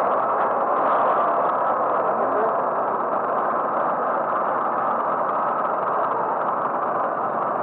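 Small moped engine running steadily as the moped rolls slowly, heard close up from the handlebars.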